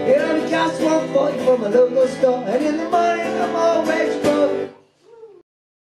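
A man singing with a strummed Takamine acoustic guitar. The music cuts off suddenly a little under five seconds in, and then there is silence.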